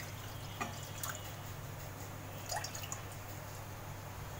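Water being poured from a glass jug into a non-stick wok, then a few scattered drips and light taps, over a faint low steady hum.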